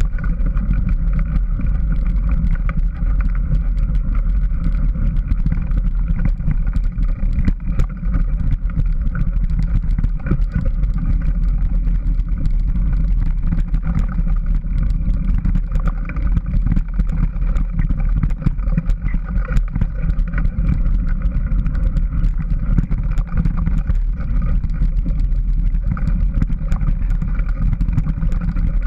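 Steady, loud ride noise of a vehicle travelling fast along a bumpy dirt trail: a constant drone with many small clicks and knocks from the bumps.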